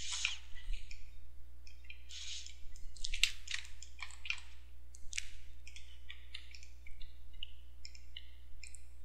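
Computer mouse clicking, with many short scratchy clicks at irregular intervals over a steady low electrical hum.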